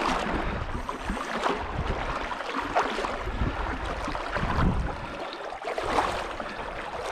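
River current rushing and sloshing close by, with water splashing as a rubber-mesh landing net is dipped and moved through it. Wind buffets the microphone in uneven low rumbles.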